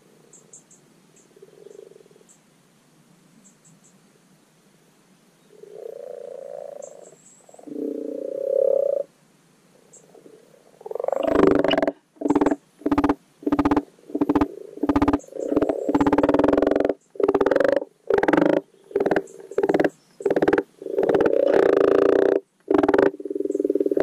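Common frogs (Rana temporaria) giving their low, purring spring spawning croaks. Faint and scattered at first, then from about halfway a frog close by croaks loudly in a rapid string of short bursts.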